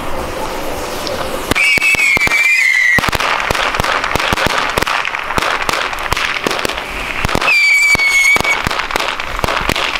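A string of firecrackers with whistling fireworks going off. A fuse fizzes, then a whistle shrieks for about a second and a half. A long run of rapid, crackling firecracker pops follows, with a second whistle near the end.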